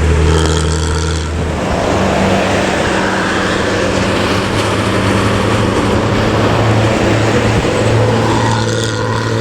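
Diesel engine of an intercity bus running hard at speed, with a low exhaust note over steady road and wind noise. The engine note changes pitch about one and a half seconds in, then holds steady.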